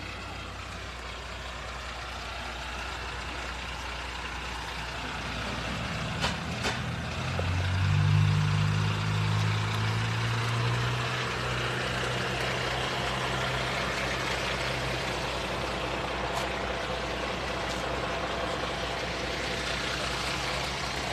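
A heavy vehicle's engine running nearby, growing louder to its peak about eight seconds in and then holding steady, with two sharp clicks just before it swells.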